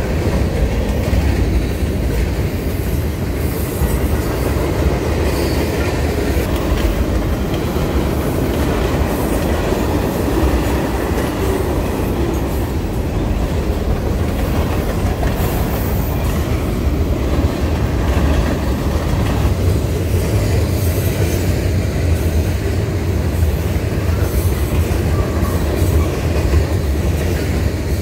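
Freight cars of a long mixed manifest train (covered hoppers, boxcars and tank cars) rolling past. Their steel wheels run on the rails in a steady low rumble, with faint higher streaks here and there.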